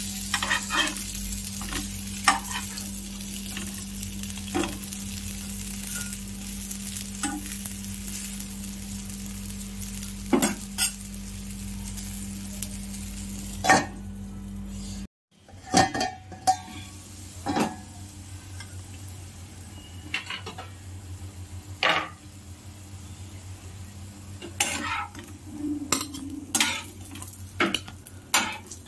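Batter-coated bread slices sizzling as they shallow-fry in oil in a non-stick pan, with scattered clicks and scrapes of a metal spatula and a low steady hum. About halfway the sizzle stops suddenly, and scattered clinks and knocks of metal utensils and a steel plate follow.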